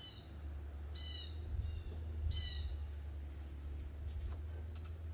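A small bird chirping: three short, high chirps about a second and a half apart. A steady low hum runs underneath, and a few light clicks come near the end.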